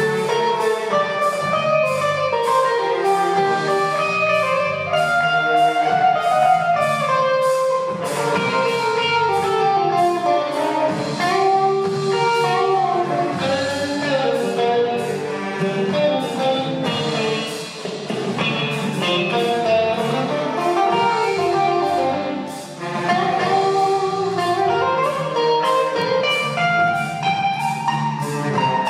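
Large saxophone ensemble with electric guitar and drum kit playing a jazzy piece, many saxophone lines moving together over a steady beat.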